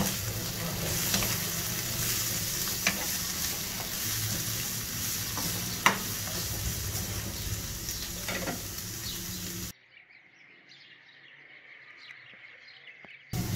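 Sliced capsicum, tomato and carrot sizzling in oil in a nonstick frying pan while a spatula stirs them, with scraping and several sharp taps of the spatula on the pan, the loudest about six seconds in. Near the end the sizzle drops suddenly to a much quieter stretch for a few seconds, then comes back.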